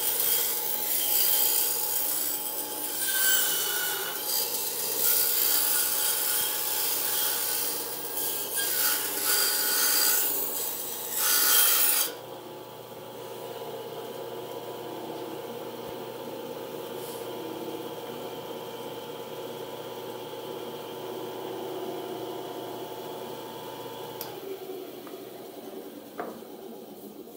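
SK11 SWB-300W benchtop band saw cutting a thick block of wood: a loud, even rasp for about twelve seconds that drops off suddenly as the blade clears the wood. The saw then runs free with a steady hum until a click about three seconds before the end, after which the sound dies away.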